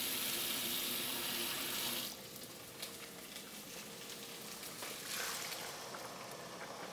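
Kitchen hiss at the stove, steady and high, cutting off abruptly about two seconds in. Fainter hiss and small clicks of pots and utensils follow, with a brief swell of hiss about five seconds in.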